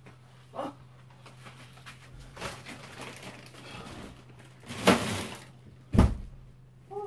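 Someone moving about off-camera: rustling, then two loud knocks about a second apart, over a steady low hum.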